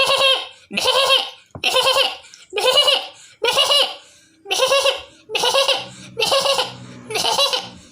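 A person imitating a goat with the voice: a string of quavering 'meh-eh-eh' bleats, about one a second.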